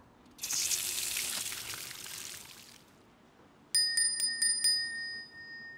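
A hiss of steam for about two seconds, then a small brass handbell rung about five times in quick succession, its ringing fading away.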